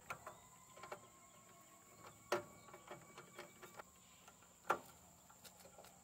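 Pliers and wiring clicking and knocking inside a furnace unit's sheet-metal cabinet as spade terminals are worked off the pressure switch. The sound is a scatter of faint clicks, with two sharper knocks a little over two seconds apart.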